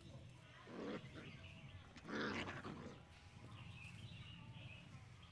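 Two short, rough animal calls, the second louder and longer, over faint background chirping.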